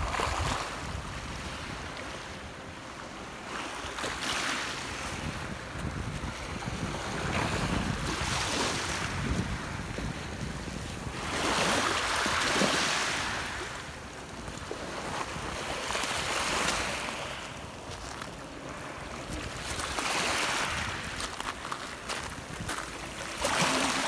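Small waves on a lake lapping onto a pebble beach, each wash swelling and fading about every four seconds, the loudest one about halfway through.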